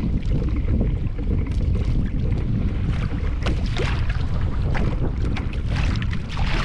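Wind buffeting the microphone in a steady low rumble, with water splashing and slapping against a kayak hull in choppy open-ocean swell.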